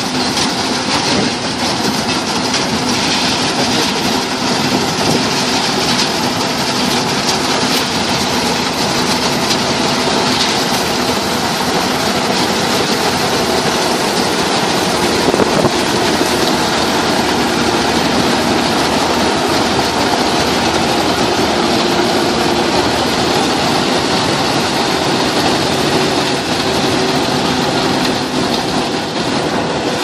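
Paddy combine harvester running, a loud, steady engine-and-machinery noise that holds at a constant level throughout.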